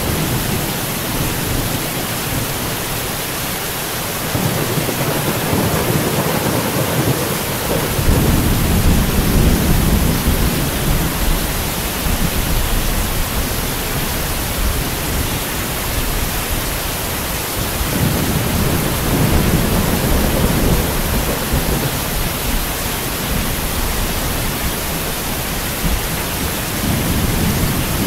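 Thunderstorm: rain falling steadily with low thunder rumbling in and out, swelling about a third of the way in and again past two-thirds through.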